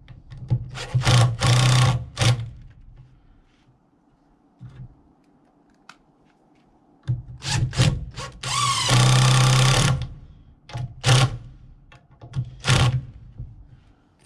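Power drill driving screws into a wooden 4x4 to fasten a door hinge, in short trigger bursts with a longer run of about a second and a half near the middle, its pitch rising as it starts.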